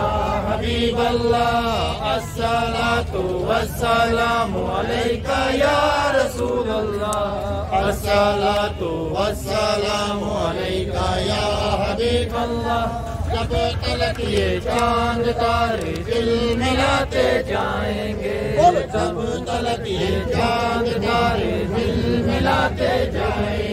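Voices chanting a continuous, melodic devotional chant.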